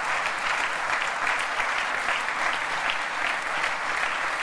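Large audience applauding steadily, a dense even patter of many hands clapping.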